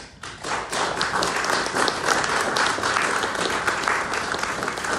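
Applause: many people clapping, building up just after the start and holding steady.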